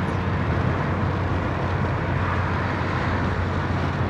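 Steady road and engine noise inside a moving car's cabin: a low, even drone with a hiss of tyres.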